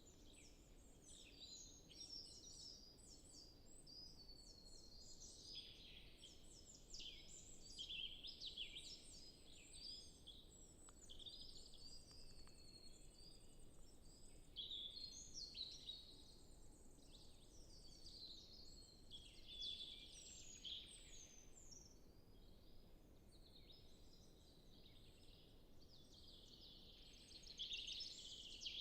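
Faint chorus of forest songbirds, several singing over one another at once with high chirps, trills and whistles, swelling louder a few times.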